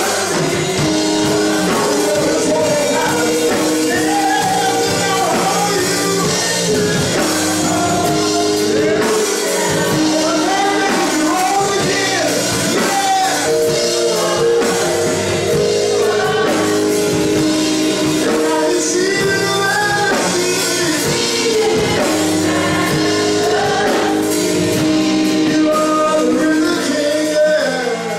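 Live gospel music: a church choir singing over a band that holds long chords underneath.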